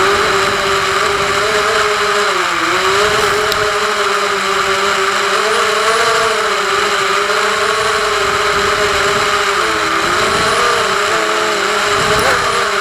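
FPV quadcopter's motors and propellers buzzing, the pitch wavering up and down with small throttle changes.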